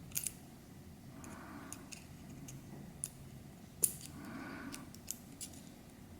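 Small metal parts of a Sig P320 trigger assembly clicking and tapping as they are handled and fitted. About half a dozen separate sharp clicks, the loudest a little past halfway.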